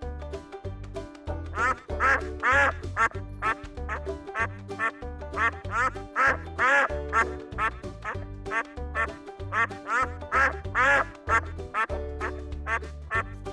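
Ducks quacking in a long run of short calls, about one or two a second, over background music with a steady beat.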